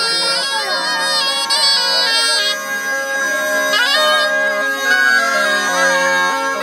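Southern Italian zampogna bagpipe playing a folk tune over steady drones, with a ciaramella shawm playing the ornamented melody line.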